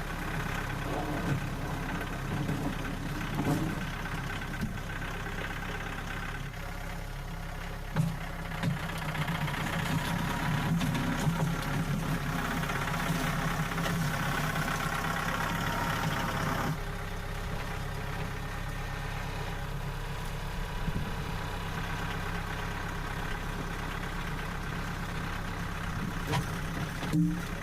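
An engine running steadily, with a few short knocks over it; its tone shifts about six seconds in and again around seventeen seconds.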